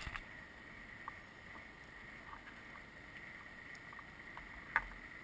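Quiet workshop room tone with a faint steady high-pitched tone. There are a few light ticks from parts being handled and one sharp click near the end.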